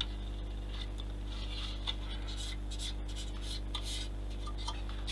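Soft, scattered rubbing and light scraping of small plastic model kit parts being handled, over a steady electrical hum.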